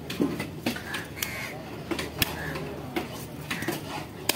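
Heavy fish-cutting knife working a trevally on a wooden log chopping block: irregular sharp knocks as the blade strikes the wood, the loudest about two seconds in and near the end.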